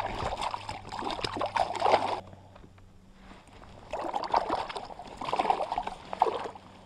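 Water splashing and sloshing in two spells of about two seconds each, with a quieter pause between, as a freshly landed trout is handled at the surface beside a float tube.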